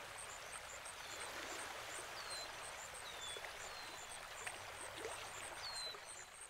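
Faint outdoor nature ambience: a steady hiss with a fast, even, high-pitched chirping and short falling whistle-like calls about once a second.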